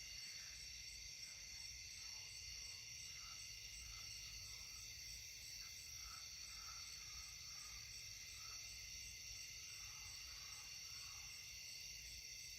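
Faint night insect chorus, a steady high trilling with a fast regular pulse, as of crickets. Fainter short calls of lower pitch come and go throughout.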